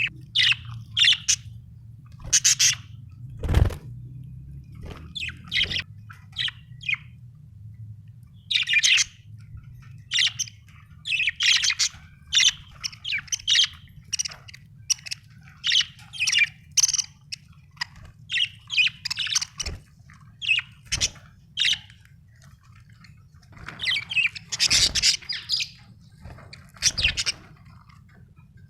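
Budgerigar chirping in short, repeated bursts every second or so. Underneath is a steady low hum, and there are a few dull thumps, the loudest about three and a half seconds in.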